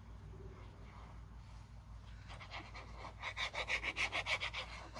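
Hands rubbing a paper layer down onto a tag to stick it, a quick run of rasping strokes about six a second starting about two seconds in, over a low steady hum.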